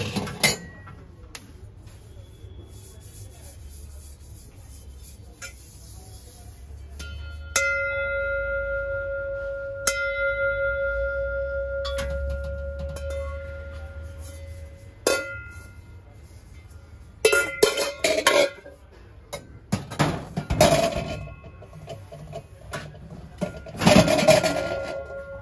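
Brass ware being handled: a brass piece is struck about a third of the way in and rings with a clear, sustained tone for several seconds, is struck again a couple of seconds later, then knocks and clinks of metal pieces being moved about.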